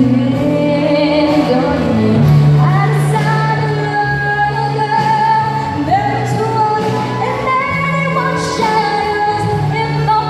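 A woman singing long held notes with vibrato over an orchestra with strings, which holds steady low notes beneath her.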